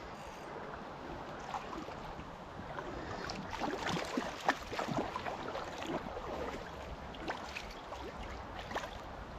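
Stream water running steadily, with a run of splashes and sharp clicks between about three and six seconds in as a hooked trout is brought in to the bank.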